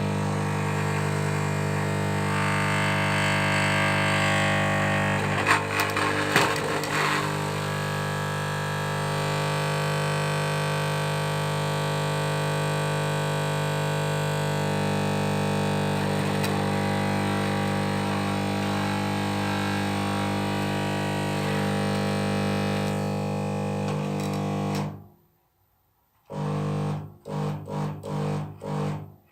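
Magnetic choke ballast of a fluorescent tube buzzing loudly with a deep, steady hum and rasping overtones, with a few crackles about five to seven seconds in. Near the end it cuts out and comes back in several short bursts. The tube has one electrode cut off and is at the end of its life, sending large discharges across the electrodes.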